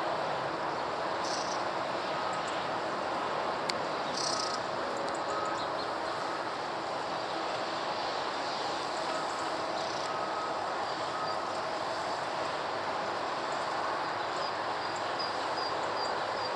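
Boeing 747-400's four jet engines heard as a steady, even rush on its landing approach, with faint short bird chirps over it.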